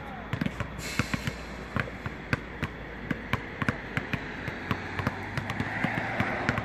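Two basketballs being dribbled hard and low on an outdoor court surface, their bounces overlapping in a quick, uneven patter of several thumps a second.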